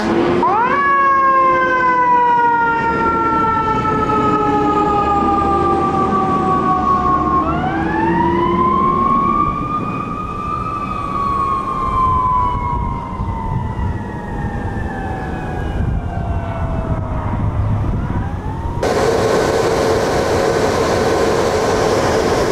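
Fire engine siren winding up quickly, then falling slowly in pitch. About seven seconds in it winds up again and slowly dies away, over the low rumble of the truck's engine. Near the end the sound cuts to another fire engine, with steadier held tones in noise.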